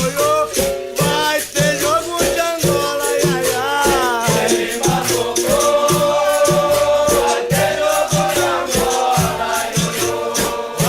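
Capoeira roda music: a berimbau and a shaken rattle over a steady drum beat of about two strokes a second, with voices singing a held chorus line.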